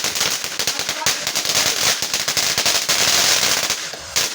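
Consumer fireworks crackling: a dense, rapid run of small pops with hiss, thickening in the middle, dropping off briefly near the end, then starting again.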